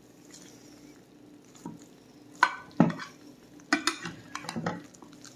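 Slotted metal spatula cutting into a cheese-topped hash brown casserole, clinking and scraping against the glass baking dish. A few sharp clinks and scrapes start about a second and a half in, the loudest near three seconds.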